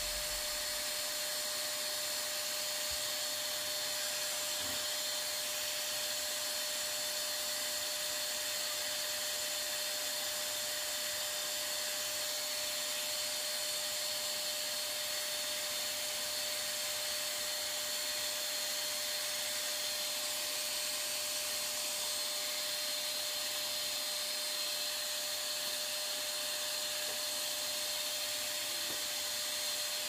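Maxhealth handheld vacuum cleaner running steadily, its rear exhaust blowing hot air onto the washed filter to dry it. A constant motor hum with an even hiss of air.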